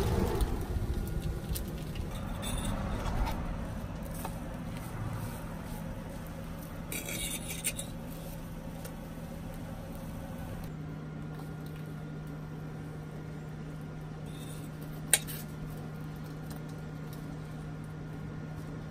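Metal fork scraping and clinking on a solar-powered electric griddle while thin egg strips cook, with one sharp click about fifteen seconds in, over a steady low hum.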